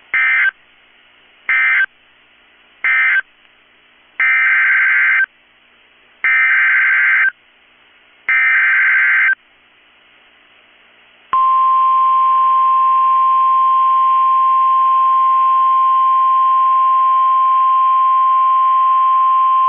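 Emergency Alert System SAME data bursts on NOAA Weather Radio. Three short bursts of digital warbling mark the end of one message, then three longer bursts of the same warbling give the header of the next warning. About eleven seconds in, the steady 1050 Hz weather-radio alert tone starts and holds.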